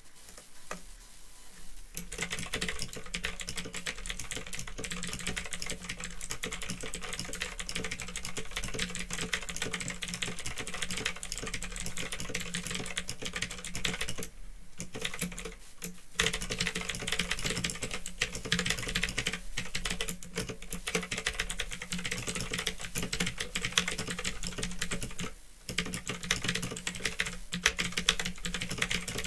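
Fast, continuous typing on a Phantom Tecware 87 mechanical keyboard with clicky Otemu Blue switches, starting about two seconds in, with brief lulls about halfway through and again near the end. Recorded through an old, low-quality microphone.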